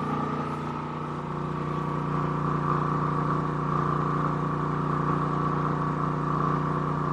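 Champion 4500-watt dual-fuel inverter generator's single-cylinder engine running steadily under about 80% load, a constant hum that picks up slightly about a second in.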